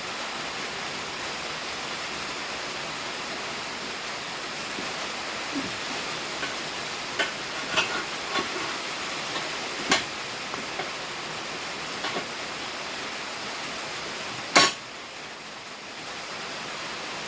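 Tire being worked on a pneumatic tire changer: a steady hiss with scattered light clicks and knocks, and one sharp bang about two-thirds of the way through.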